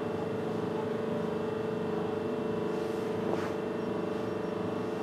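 Stationary locomotive running at a standstill: a steady machinery hum with a strong held tone. A short sharp hiss sounds about three seconds in.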